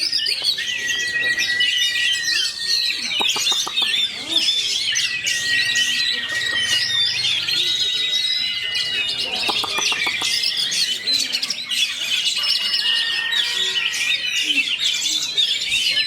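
Oriental magpie-robin (kacer) singing without pause: a fast, tightly packed run of varied high whistles and trills, with harsh rattling phrases about three seconds in and again around nine to ten seconds.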